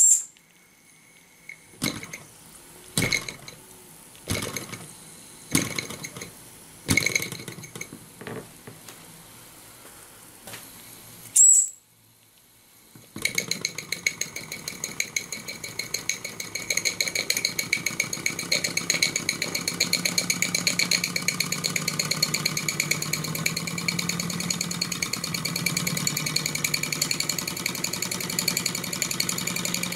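Mamod SR1A toy steam engine: its steam whistle gives several short toots, showing the boiler is under pressure. About thirteen seconds in, the engine runs fast and unloaded with no drive belt fitted, a rapid, even chuffing.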